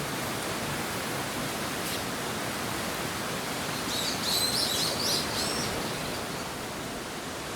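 Steady rushing outdoor background noise, with a bird giving a quick, high twittering call about four seconds in that lasts a little over a second.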